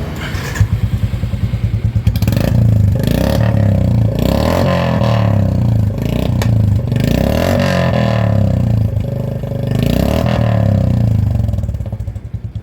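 Royal Enfield Classic 350 Reborn's single-cylinder engine running through a short-bottle aftermarket silencer: a thumping idle that is revved up several times in the middle and drops back to idle near the end.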